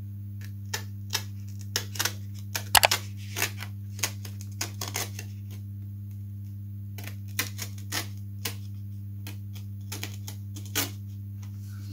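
Craft scalpel cutting and lifting the tissue covering of a balsa model aircraft wing: irregular sharp clicks and crackles of the tissue, loudest about three seconds in, over a steady low hum.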